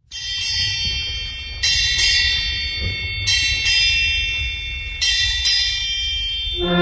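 A high bell struck in quick pairs, four pairs about a second and a half apart, each stroke ringing on over a low rumble. Near the end, music begins.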